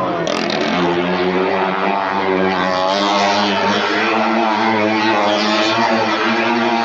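Stunt motorcycle engine running at steady high revs while riding around the vertical wooden wall of a well of death, its pitch rising and falling slightly with each lap.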